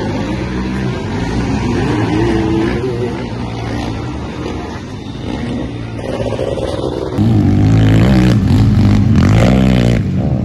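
Sidecarcross racing outfits' engines revving round a dirt motocross track, the pitch rising and falling with the throttle. About seven seconds in it jumps to a louder, closer engine revving hard.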